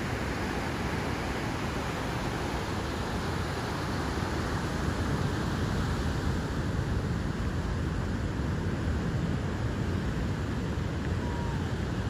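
Steady rushing noise of heavy ocean surf breaking on the beach, with wind buffeting the microphone.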